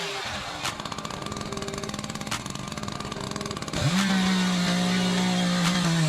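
Two-stroke chainsaw idling with a rapid putter, then revved up about four seconds in and held at a steady high pitch at full throttle.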